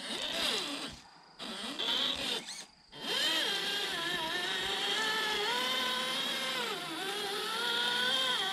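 RC crawler's electric motor and geared drivetrain whining under load as it climbs, first in a few short throttle bursts with brief pauses, then a steady whine from about three seconds in whose pitch rises and falls with the throttle.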